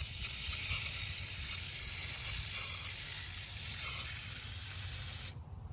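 Aerosol battery terminal cleaner spraying onto corroded battery terminals in one long hiss that cuts off about five seconds in.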